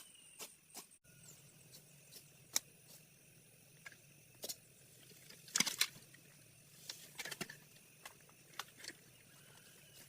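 Scattered light knocks and clicks with a brief cluster of louder scraping strokes about halfway through, like objects being handled or swept. The background changes abruptly about a second in.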